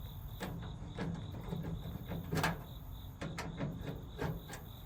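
Scattered light clicks and knocks, irregularly spaced with one sharper knock about halfway through: hands and tools working on a metal rolling tool cabinet.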